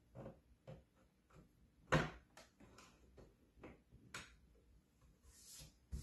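Faint plastic clicks and knocks of a Ubiquiti ceiling-mount Wi-Fi access point being pressed and twisted onto its ceiling mounting bracket, the loudest knock about two seconds in. A brief rustle near the end.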